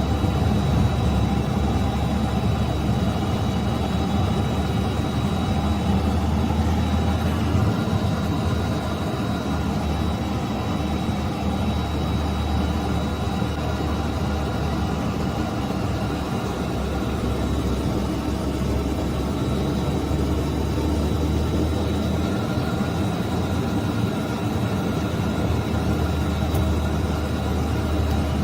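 A motor vehicle's engine running steadily, with a faint steady high whine over it.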